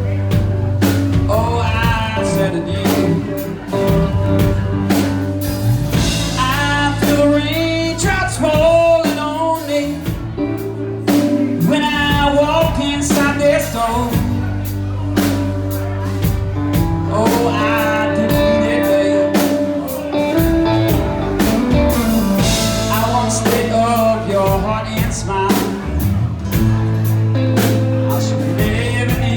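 A band playing a song, with a sung lead vocal in phrases over guitar, a steady bass line and drum kit.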